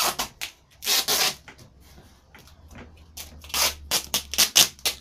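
Duct tape being pulled off the roll and wrapped around a football: one longer rip about a second in, then a quick run of short rips and crackles near the end.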